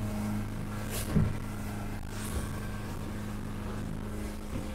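A single 200 hp outboard motor running steadily at cruising speed, heard from inside the boat's pilothouse cabin as a constant drone. There is one sharp thump about a second in.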